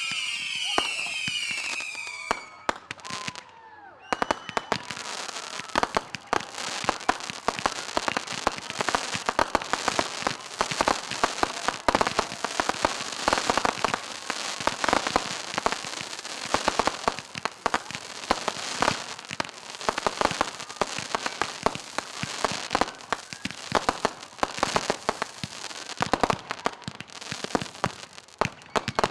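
Fireworks: high whistling that falls in pitch for the first couple of seconds, then, after a short lull, a long run of dense, rapid crackling pops.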